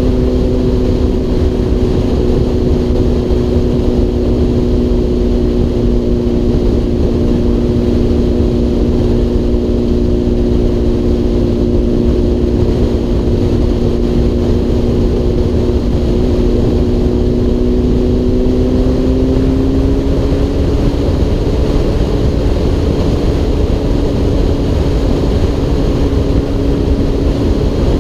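Honda CBR1000RR's inline-four engine droning steadily at cruising speed, heard from the rider's helmet with low wind rumble on the microphone. The engine pitch rises a little about two-thirds of the way through.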